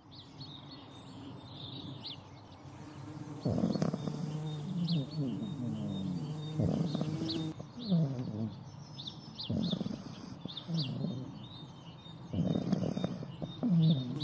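Small birds chirping steadily in the background while a sleeping pug snores in repeated low snorts, one every couple of seconds from about three seconds in.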